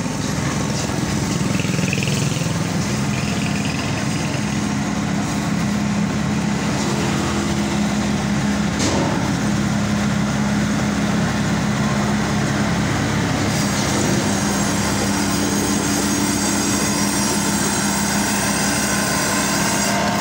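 Diesel engine of a tracked rice combine harvester running steadily with a constant low hum while the machine drives on its crawler tracks.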